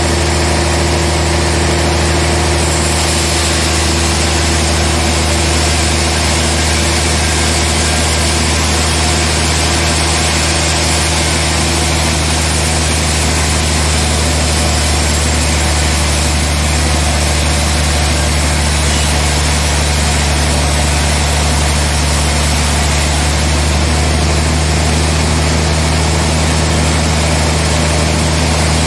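Large band sawmill running steadily as it saws a trembesi (rain tree) log into a slab: a loud, even mechanical drone with a deep hum that holds unchanged throughout.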